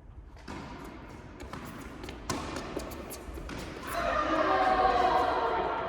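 Tennis ball thudding on an indoor court, four sharp hits or bounces roughly a second apart, followed from about four seconds in by players' voices.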